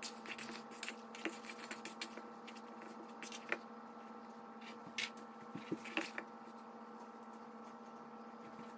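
Hands mixing raw ground-meat meatloaf mixture in a plastic bowl, then patting it into a loaf: faint, irregular wet squishes and soft pats, over a steady low hum.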